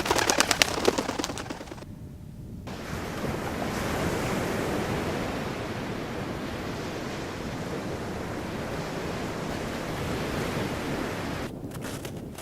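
Added foley sound: a loud crackling, splashing burst for about two seconds, then, after a short dip, a steady rushing noise of surf that starts and stops abruptly.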